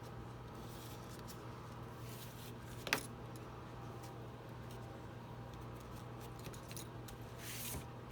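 Small metallic clicks and light rattling as small tools and parts are handled during an iPad teardown, over a steady low hum; one sharp click stands out about three seconds in, and a short hiss comes near the end.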